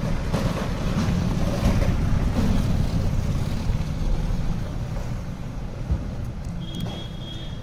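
Low rumble of wind buffeting the microphone, with light rustling and scraping as a phone's retail box is slid open and its inner tray lifted out. A thin high tone comes in near the end.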